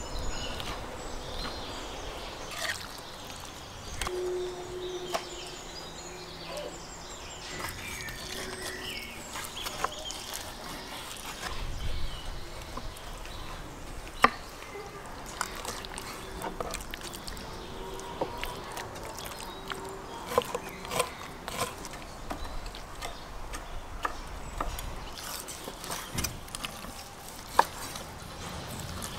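Kitchen knife slicing raw meat and beef fat on a wooden cutting board: soft cutting with scattered sharp knocks of the blade against the board, the loudest about halfway through and near the end.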